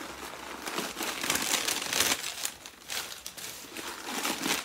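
Rustling and crinkling from handling a black pebble leather vintage Coach drawstring bag as its drawstring is pulled and the bag opened, in irregular scrunches that are loudest between about one and two seconds in.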